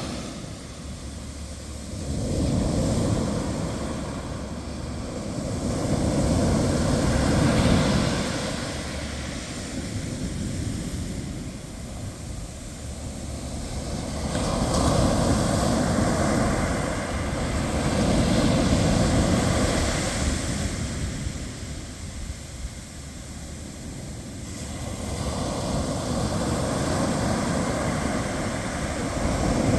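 Ocean waves breaking and washing up the shore, the surf swelling and fading in slow surges every several seconds.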